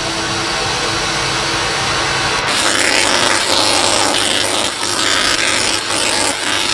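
Tesla coil sparks arcing through the air: a loud, harsh electric buzz that sets in suddenly about two and a half seconds in and flickers with short breaks. Before it there is a quieter steady hiss with a few held tones.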